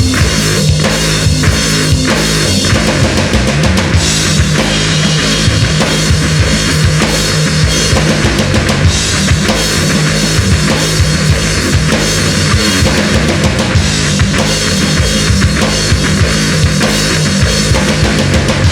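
Rock band playing an instrumental passage: a full drum kit with bass drum and snare keeping a steady beat under distorted guitars and bass, with no vocals.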